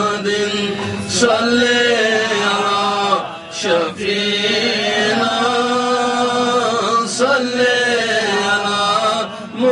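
Male voices chanting a devotional Urdu naat in praise of the Prophet in long, drawn-out phrases, with short breaks between phrases every few seconds.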